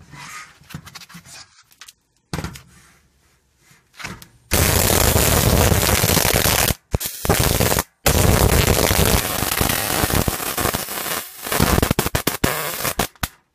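Stun gun wired into an athletic glove discharging through its fingertip spike electrodes onto a metal mesh panel: loud crackling electric arcing starts about four and a half seconds in, stops briefly twice, and sputters into short bursts near the end. Before that there are only faint handling sounds.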